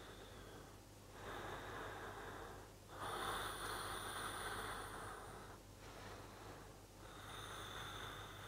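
A person breathing slowly in and out through the nose: three long, soft breaths, the middle one loudest.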